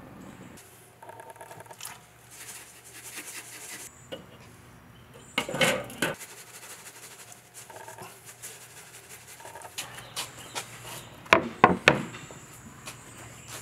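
Metal clatter of the steel cooking grate being set down on a charcoal kettle grill about five and a half seconds in, then a few sharp metal clanks near the end as the enamelled grill lid goes on.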